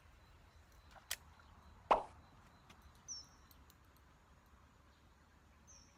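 A lure landing on water with a single plop about two seconds in, shortly after a light click.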